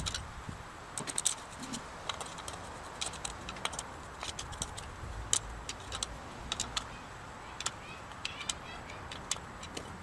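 Light metallic clicks and clinks at irregular intervals, as of metal alternator parts and tools being handled on a workbench.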